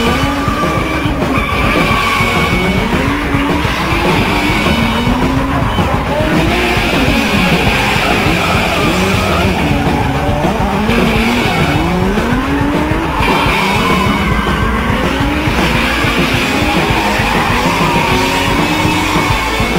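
Drift cars sliding through a corner, their engines revving up and down again and again and their tyres squealing, with music playing underneath.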